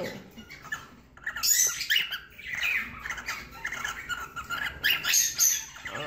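Female cockatiel giving a run of short, high chirps and squawks, repeated many times after a quiet first second. This is the strange-sounding call of a hen asking the male to mate, which comes with her raising her tail; it is normal behaviour, not a sign of illness.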